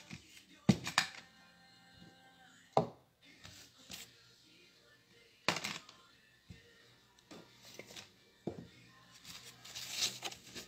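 Objects being picked up and set down on a tabletop: several sharp knocks a few seconds apart, one followed briefly by a ringing tone, then rustling of materials being handled near the end.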